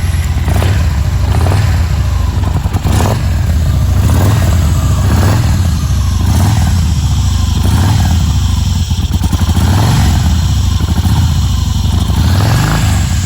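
Yamaha Bolt's 942 cc air-cooled V-twin running on its stock exhaust, a steady, deep engine note.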